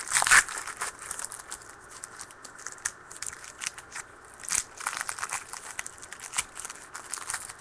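Trading cards and card-pack wrappers being handled: irregular crinkling and rustling with scattered small clicks, louder once near the start and again about four and a half seconds in.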